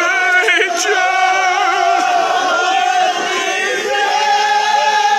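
A group of men chanting a marsiya, a Shia elegy, together, with long held, drawn-out notes.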